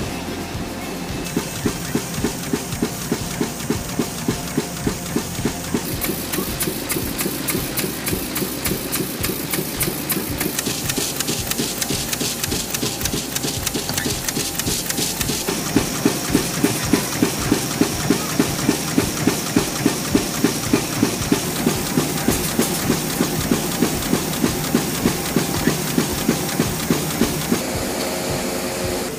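Banknote printing and processing machinery running with a steady rhythmic clatter, about two to three beats a second, its tone shifting a few times.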